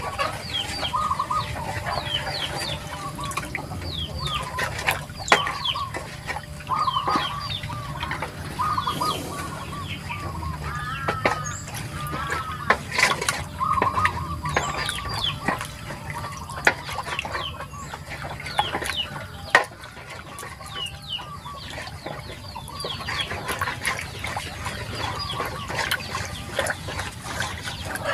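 Chickens clucking and calling over and over. Underneath, the sugar water in a metal basin sloshes as it is stirred with a wooden stick, with a few sharp knocks.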